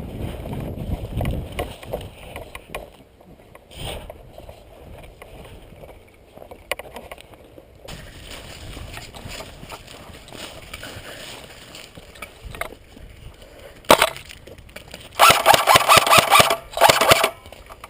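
Airsoft electric gun firing on full auto: two rattling bursts near the end, led a moment before by a single sharp crack. Earlier there is rustling, crunching movement on foot.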